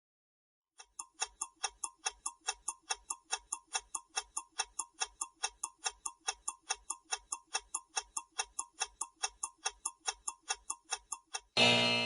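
Quiz countdown timer sound effect: clock ticks at about four a second for roughly ten seconds, ending in a short, loud time-up sound near the end.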